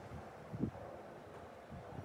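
Faint handling noise with one soft, low thump a little over half a second in.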